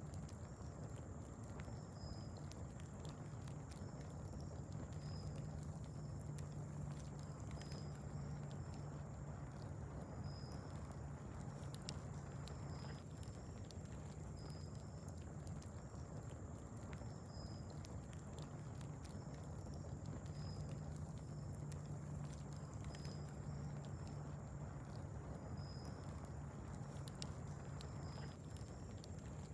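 Wood fire crackling faintly with scattered small pops, over a steady low hum. A short high chirp repeats every second or two.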